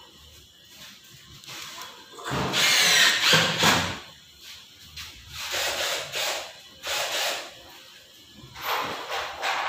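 Power drill driving the fixings for a urinal divider panel into the wall, run in short bursts: one longer burst a couple of seconds in, then three shorter ones.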